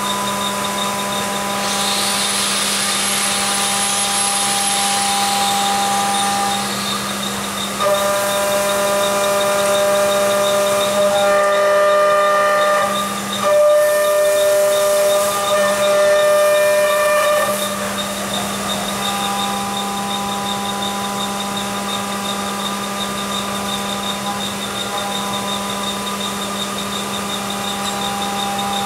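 CNC vertical milling machine cutting a metal block under flood coolant: a steady whine made of several held tones, with the hiss of the coolant spray. The tones shift in pitch a few times in the middle as the cut changes.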